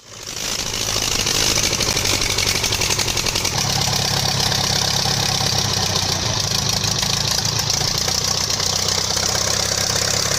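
Belarus 510 tractor's diesel engine idling steadily, its fuel pump freshly rebuilt and adjusted. The sound fades in over the first second.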